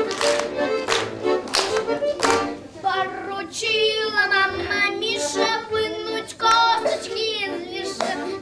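Children's group singing to musical accompaniment: sharp rhythmic beats over the music for the first couple of seconds, then several children's voices come in singing together.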